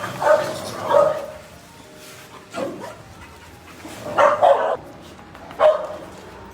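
A dog barking in short barks, about six of them at uneven intervals.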